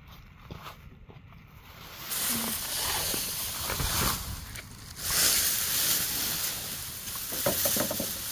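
Dry thatching grass rustling as bundles are handled. It starts about two seconds in, after a quieter start with a few small clicks, and eases off briefly around the middle before picking up again.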